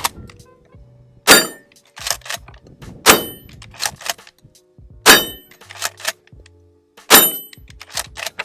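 Maverick 88 12-gauge pump-action shotgun fired four times, about two seconds apart. Each shot is followed by quick clacks of the pump being worked to chamber the next shell.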